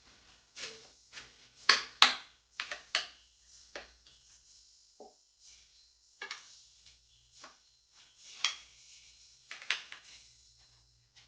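Irregular knocks and clacks of hard objects being handled and set down on a work surface: about a dozen sharp hits, the loudest two close together about two seconds in.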